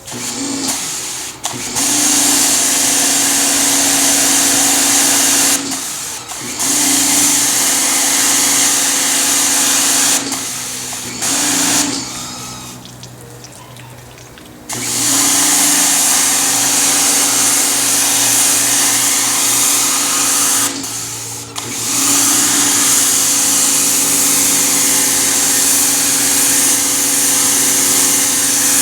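Greenworks 1700 PSI electric pressure washer running: the motor and pump hum steadily under the hiss of the water jet. It stops briefly about four times and starts up again each time.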